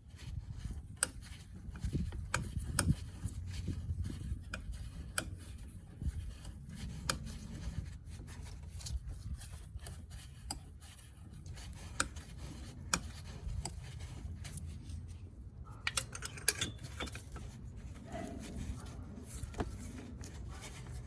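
Light, irregular metallic clicks and rubbing from a spark plug socket and extension being handled while a new spark plug is threaded in and snugged down.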